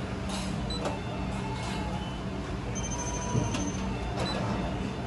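Touchscreen ordering panel giving short electronic beeps as items on it are tapped, over a steady low hum.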